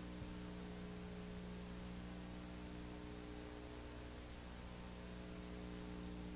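Faint, steady electrical mains hum, a set of low, even tones, with a light hiss underneath.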